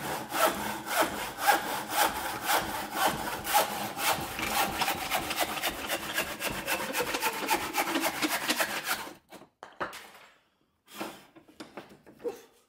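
Hand saw cutting through a block of timber clamped in a vise, in steady back-and-forth strokes. It stops about nine seconds in, followed by a few short knocks as the cut piece is handled in the vise.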